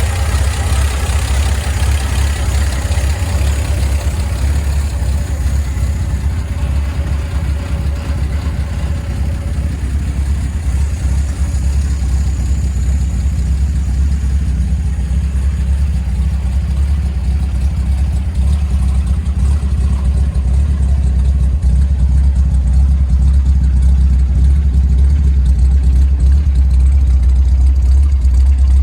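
Straight-six engine of a 1953 Chevrolet 3100 pickup, fitted with headers into glasspack dual exhausts, running steadily with a low exhaust note. It gets a little louder about two-thirds of the way through.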